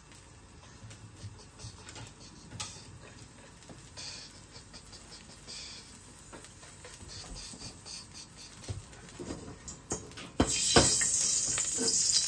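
Oil heating in a carbon-steel wok with faint ticks and crackles, then about ten seconds in a sudden loud sizzle as food goes into the hot oil, with a few sharp clinks of the metal wok ladle.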